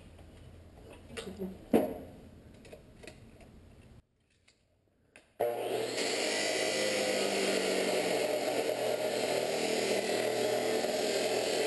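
A few light clicks and knocks of a tool being handled, then about halfway through an abrasive cut-off disc on an angle grinder starts running steadily, cutting through steel.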